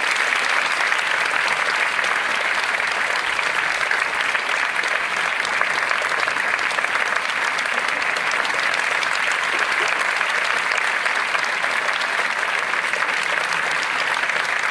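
Large concert audience applauding: dense, steady clapping.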